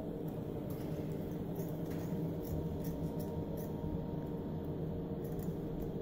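Scissors cutting ribbon, with a series of light, sharp blade clicks and snips. Under them runs a steady low hum.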